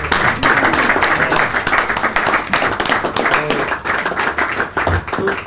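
Audience applauding: dense, steady clapping from many hands, with a few voices faintly heard through it.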